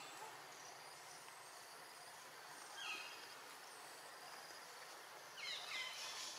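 Steady high hum of forest insects, with a brief cluster of short, high-pitched squeaky calls about three seconds in and a louder run of them near the end.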